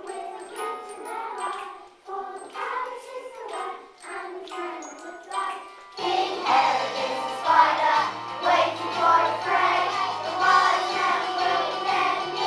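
Christmas song music with light, tinkling bell-like notes and no bass at first; about halfway through, a fuller arrangement with bass comes in and children sing.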